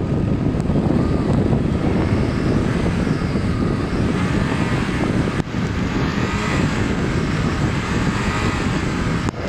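Lada Niva engine running hard under load, its pitch rising and falling, as the car tries to pull itself and its trailer out of snow with the diff lock engaged. Heavy wind noise on the microphone.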